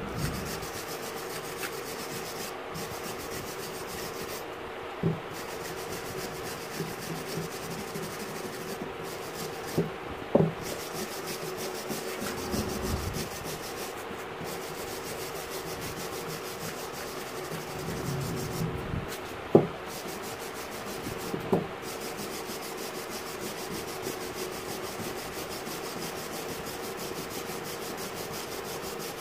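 Brass wire hand brush scrubbing rust off a rusted steel tool part: a steady, scratchy rasping. There are a few sharp knocks now and then, the loudest about two-thirds of the way through.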